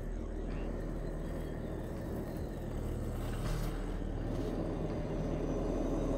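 Axial SCX10 II radio-controlled crawler's electric motor and gear drivetrain running steadily as it drives across dirt, growing a little louder as it comes closer.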